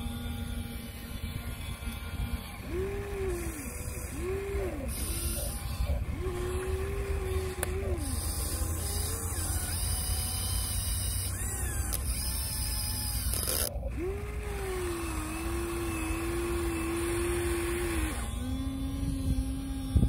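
Huina 1/14-scale RC excavator's electric motors whining in separate strokes, each rising in pitch, holding and dropping away, as the boom, arm and turntable move to dig sand and swing it over the truck. A sharp thump comes at the very end.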